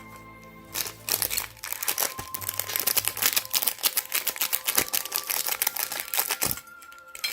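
Seasoning packet crinkling and rustling rapidly as it is opened and handled, starting about a second in and stopping near the end, over background music.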